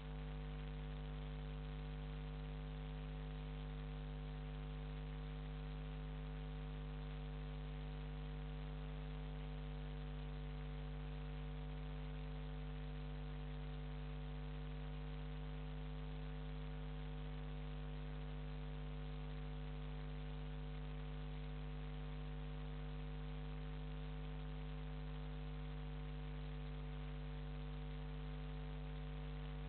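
Steady electrical mains hum, a low buzz with a ladder of overtones, over a constant hiss, unchanging throughout.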